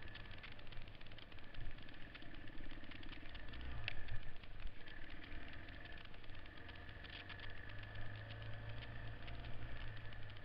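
Single-cylinder four-stroke engine of a vintage Honda XL trail bike running under way on a dirt trail, with steady rattling from the bike over the rough ground and one sharp knock about four seconds in.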